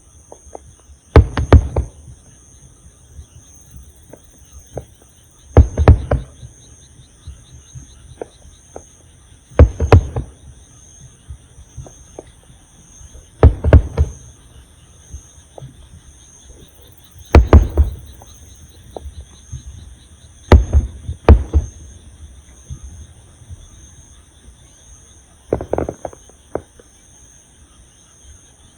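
Aerial fireworks shells bursting with deep booms, about one every four seconds, some in quick pairs. Steady high chirping of insects runs underneath.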